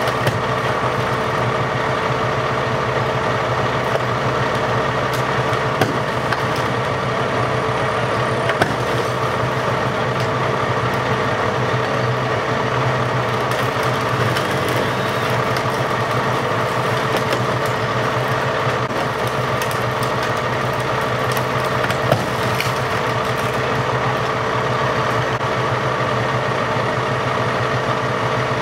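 A large engine idling steadily, a constant drone with no change in speed, with a few sharp clicks about six, nine and twenty-two seconds in.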